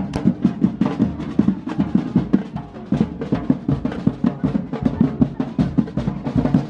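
Drum band in a street procession playing a fast, steady drum beat.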